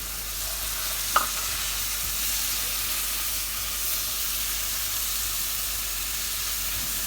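Chopped onions, ginger and tomato sizzling steadily in hot oil in a frying pan, with one sharp tap about a second in.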